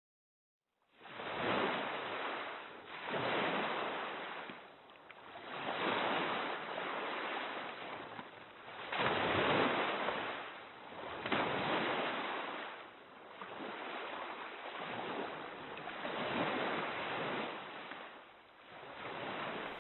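Sea waves washing in, the surf swelling and ebbing in slow surges every two to three seconds, beginning about a second in.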